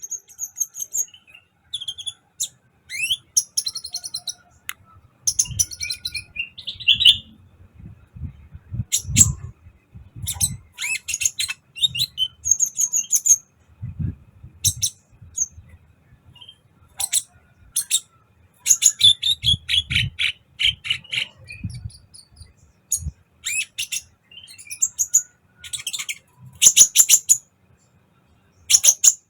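Kolibri ninja sunbird singing energetically: rapid bursts of high, thin chirps and trills, repeated in quick phrases, with some low rumbling underneath at times.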